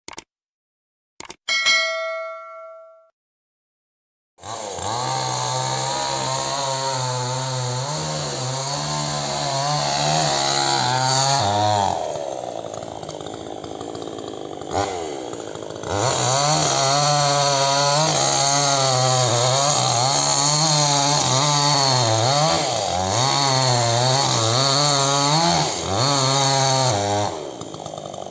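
A click and a ringing ding from a subscribe-button graphic, then a chainsaw running at high revs with a wavering pitch as it cuts into a rubber tree trunk. Midway it drops to a lower, quieter run for a few seconds, then returns to full speed and eases off again near the end.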